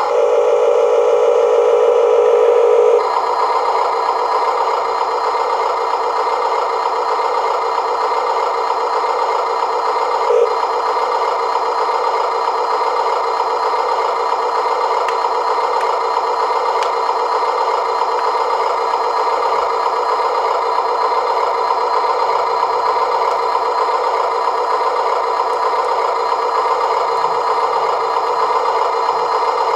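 Electronic sound module of an Amewi Mercedes-Benz Arocs RC tipper truck playing a simulated truck diesel engine as a steady, buzzy drone through the model's small loudspeaker, thin with no deep bass. An extra tone sits on top for the first three seconds, and there is a short blip about ten seconds in.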